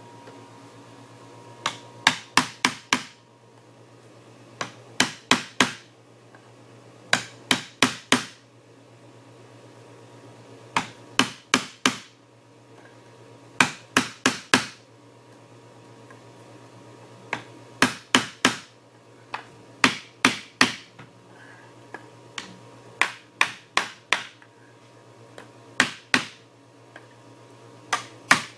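Hammer rapping at a glued wooden corner block of an antique chair to knock it loose, in quick groups of three to five sharp blows repeated every two to three seconds; the block is stubborn and not coming apart easily.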